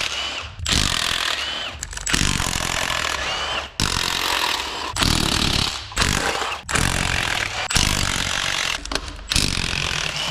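Impact wrench running in repeated bursts of about a second each, with a short rising whine as each burst starts, loosening the exhaust manifold bolts on a 6.0L Powerstroke diesel engine.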